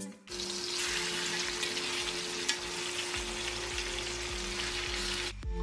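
Pork chops sizzling in hot vegetable oil in a cast iron skillet as they sear. The sizzle starts and stops abruptly.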